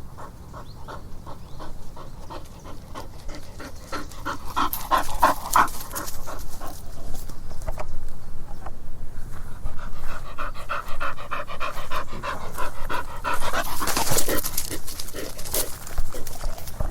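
Bull terrier panting hard, a quick even run of breathy in-and-out breaths, with one louder breathy burst near the end.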